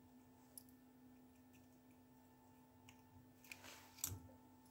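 Small faint clicks and a short scrape of a thin metal pick working at the plastic housing of an OPPO wireless earbud charging case. A sharper click comes about four seconds in, over a faint steady hum.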